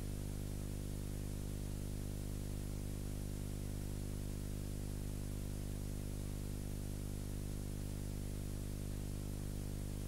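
Steady electrical hum with a stack of overtones under a constant hiss, unchanging throughout: transfer noise on the track of a silent film, with no recorded sound of the scene.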